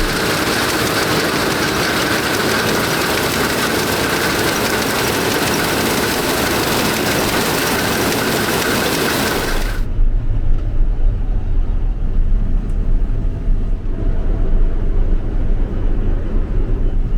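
Nexat combine harvester running during canola harvest. For about ten seconds there is a loud, even rushing noise; then it switches suddenly to a lower engine rumble with far less hiss.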